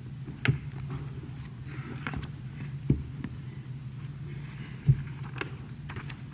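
Room tone with a steady low hum, broken by a few scattered soft knocks and clicks and faint rustling; the loudest knock comes about five seconds in.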